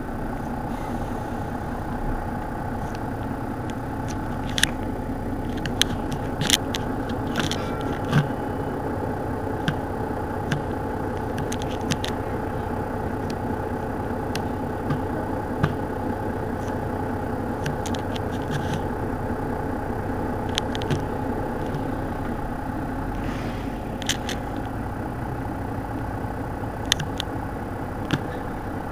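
An engine idling steadily, heard through a vehicle's windscreen, with scattered sharp clicks and ticks over the drone.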